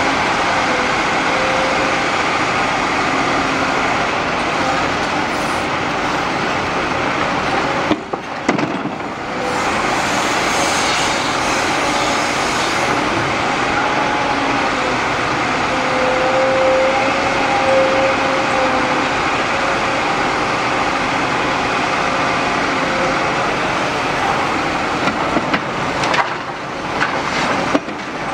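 Liebherr R 946 crawler excavator's diesel engine and hydraulics working steadily as it digs and swings, with a whining tone that wavers in pitch. Near the end, clunks and rattles as the bucket dumps soil into the steel bed of a Tatra dump truck.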